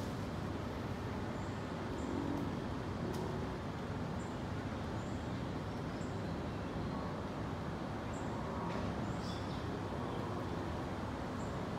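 Steady distant city traffic rumble, with scattered short, high bird chirps over it.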